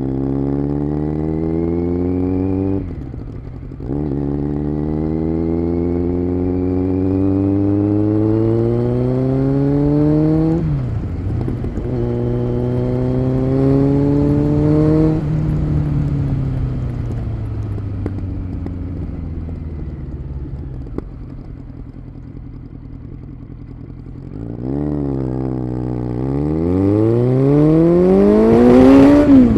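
Kawasaki Z900 inline-four through an SC Project aftermarket exhaust, accelerating hard through the gears. The engine note climbs, breaks briefly at upshifts about three and eleven seconds in, and climbs again to a peak around fifteen seconds. It then falls steadily as the bike slows, before rising steeply again near the end.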